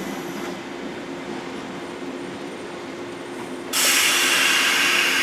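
185 series electric train standing at the platform with a steady hum from its onboard equipment; about three and a half seconds in, a loud hiss of air starts suddenly and keeps going.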